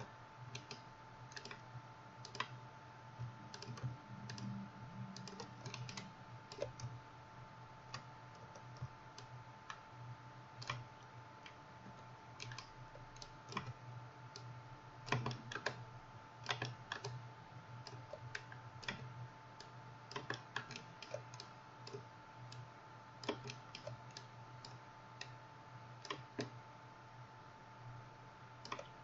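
Irregular clicking and tapping of a computer keyboard and mouse during 3D-modelling work, with a busier cluster about halfway through, over a steady faint hum.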